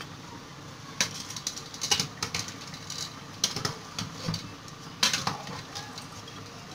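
A metal spoon stirring tripe and chickpeas in a metal cooking pot, clinking and scraping against its side in a handful of short, irregular strokes.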